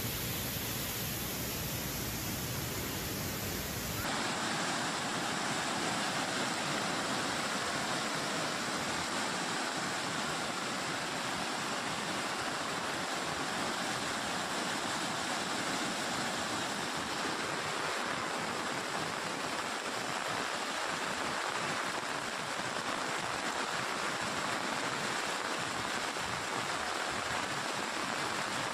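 Floodwater rushing in a swollen river: a steady, unbroken rush of water. About four seconds in, the sound changes abruptly, losing its low rumble and sitting higher.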